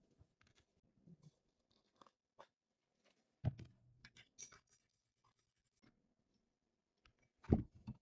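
Quiet clinks and taps of a metal spoon against a ceramic cup as instant coffee is stirred, with a louder knock about three and a half seconds in. Near the end, two louder knocks as a stainless-steel milk pitcher is handled on the counter.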